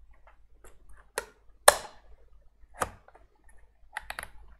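Several sharp plastic clicks and knocks as a Panasonic Toughbook CF-31's hard-drive caddy is pushed into its bay and its door pressed shut. The loudest click comes about a second and a half in, and a quick run of smaller clicks follows near the end.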